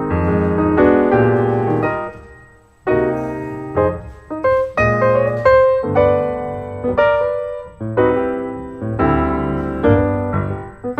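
Background piano music, struck chords over a bass line, with a short pause about two seconds in.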